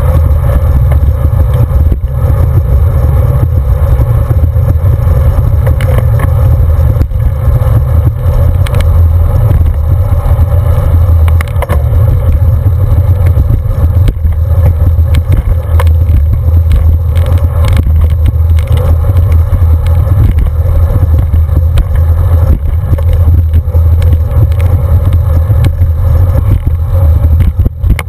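Wind buffeting the microphone of a camera on a moving road bike, mixed with tyre and road rumble. It is a heavy, steady low rumble with frequent small clicks and rattles from the road surface.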